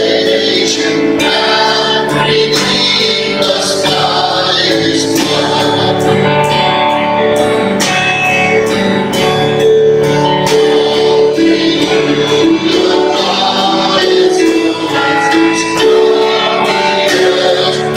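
Voices singing a hymn to a strummed guitar accompaniment.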